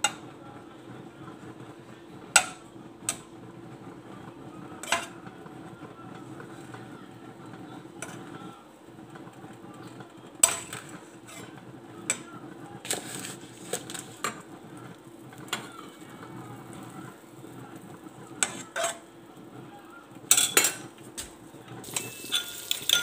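Kitchen utensils clinking against dishes and a frying pan in scattered sharp knocks over a steady low hum. Near the end comes a quick run of clinks as a fork beats eggs in a bowl.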